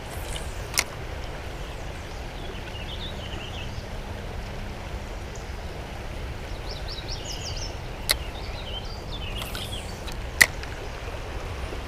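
Steady low rush of a shallow river flowing over riffles, with birds chirping in the background. Three sharp clicks from the spinning rod and reel being handled while casting and retrieving, the loudest near the end.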